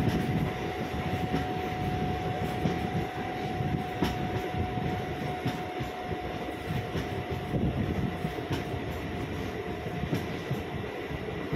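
MEMU electric multiple-unit train running along the line: a steady rumble of wheels on rails with a constant high tone, and now and then a sharp click from the wheels.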